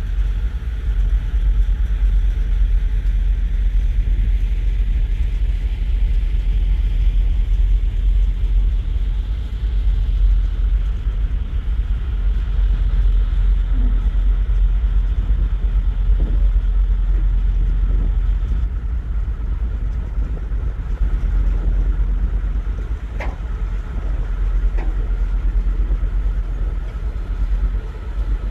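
Steady low rumble on the open deck of a ferry under way, with wind buffeting the microphone over the drone of the ship's engines and a faint steady whine above it.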